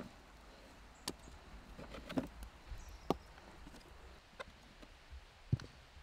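A few light, scattered knocks and clicks, about five over six seconds, the sharpest near the end, over a faint steady hiss.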